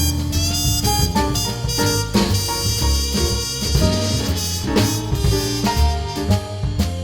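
Upbeat instrumental music with a drum beat and a melody of quick, shifting notes.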